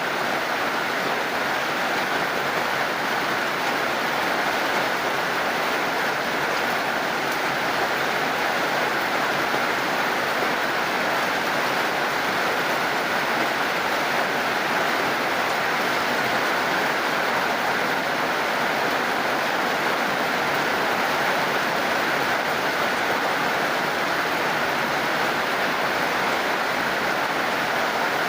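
Steady heavy rain falling, an even, unbroken hiss of water.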